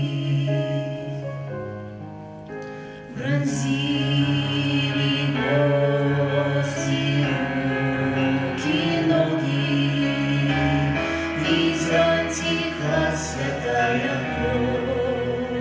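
A choir of male and female voices singing a song with accompaniment, in long held notes.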